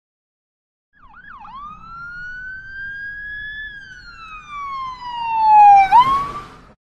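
Emergency-vehicle siren: a couple of quick pitch dips about a second in, then one slow wail that rises, then falls while growing louder, and sweeps sharply up before it stops.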